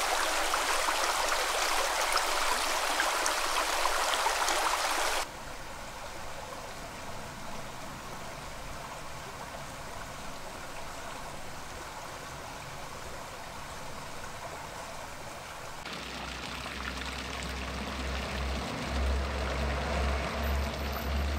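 Shallow brook running over pebbles, a steady rush of water. About five seconds in it cuts abruptly to a quieter, softer stream. Near the end it gives way to a fountain's jets splashing into a stone basin, over a low rumble.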